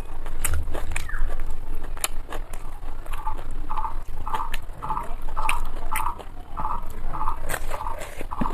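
Close-up chewing and wet mouth clicks from eating biryani by hand, with fingers picking at rice on a plate. From about three seconds in, a short tone repeats in the background about twice a second.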